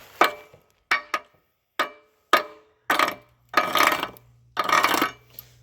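Hammer striking fresh steel welds to knock off the slag: several sharp metallic taps with a ringing note, then three longer rasping bouts of chipping or scraping over a low steady hum.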